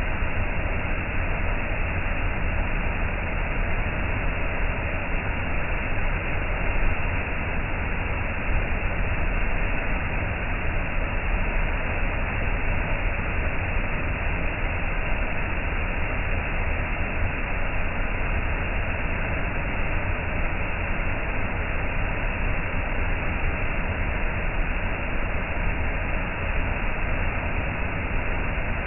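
Waterfall pouring over a rock ledge onto a gravel beach: a steady, unbroken rush of falling water with a deep rumble underneath.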